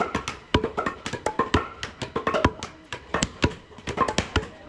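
Repeated hard wooden knocks, several a second, some with a short ringing tone: a wooden club pounding tamu root on wood to crush it.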